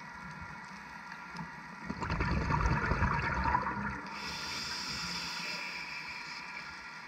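Scuba diver's exhaled breath bubbling out of the regulator for about two seconds, followed by the softer hiss of the next breath drawn through the regulator, heard underwater.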